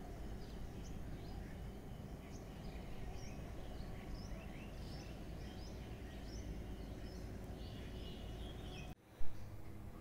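Birds chirping, many short chirps scattered throughout, over a steady low outdoor rumble. Near the end the sound cuts out briefly, followed by one sharp thump, the loudest moment, then a low steady hum.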